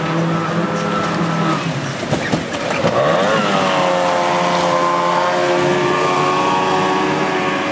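Outboard engine of an inflatable power dinghy running hard through white-water rapids. Its pitch holds steady, swoops and drops about three seconds in, then settles at a lower steady note. Rushing water sounds underneath.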